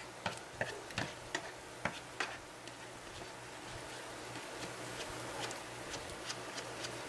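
A plastic spatula clicking and scraping against a nonstick frying pan as eggs are turned and broken up, over a low steady sizzle of frying. The sharp clicks come thickest in the first couple of seconds, then thin out to occasional ticks.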